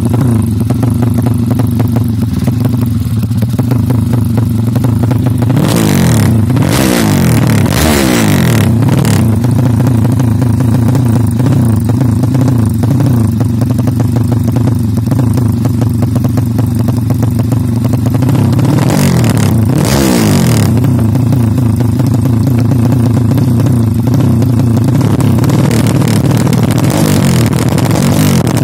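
Drag-tuned Yamaha Jupiter MX motorcycle engine, bored out to 325cc, running at a steady idle. The throttle is blipped a few times, about six seconds in and again around nineteen seconds, the pitch rising and falling back each time, as the bike is tuned.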